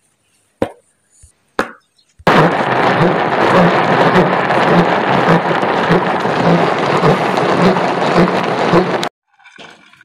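Food chopper running on carrot pieces: a loud, even grinding that starts suddenly about two seconds in, with a faint pulse about twice a second, and stops abruptly near the end. A couple of short clicks come before it.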